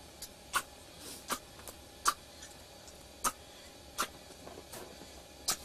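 Hands kneading dough in a metal basin, giving irregular sharp taps and clicks against the metal, about eight of them at uneven intervals of half a second to a second.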